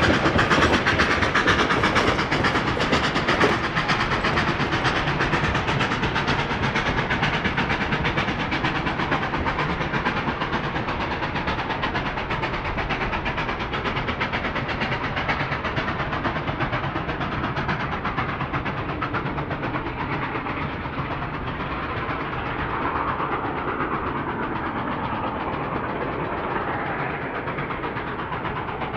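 Durango & Silverton narrow-gauge steam train running past, its cars rattling along the rails in a dense, steady clatter that slowly fades and dulls as it moves away.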